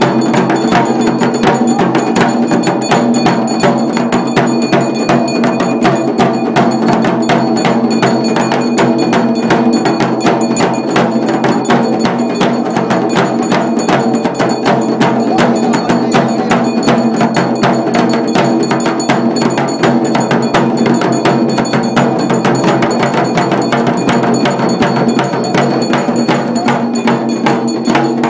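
Rapid, unbroken ritual drumming on a large double-headed barrel drum, with a steady metallic ringing layered over the beats.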